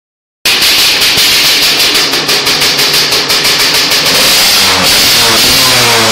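Gas Gas Halley 125 motorcycle engine running, starting about half a second in with an uneven pulsing idle, then revved from about four seconds in, its pitch rising and falling.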